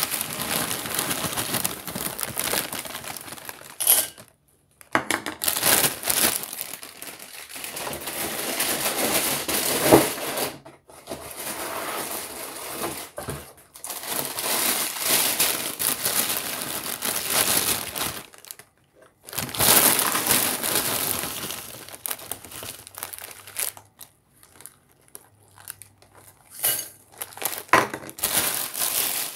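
Crinkling and rustling of a cereal box's plastic bag liner being handled, in long stretches with short pauses between them.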